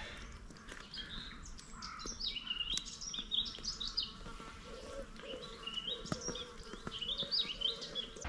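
Small bird singing: two runs of quick chirping notes that jump up and down in pitch, each a few seconds long.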